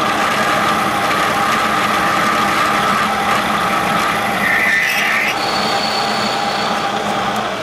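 Metal lathe running under power and turning a steel part, a steady machine whine over cutting noise, with a higher-pitched tool squeal for a couple of seconds past the middle.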